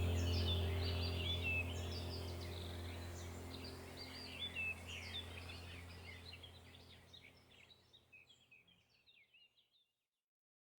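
Relaxation soundtrack: a low steady drone with birds chirping over it, fading out gradually to silence about eight seconds in.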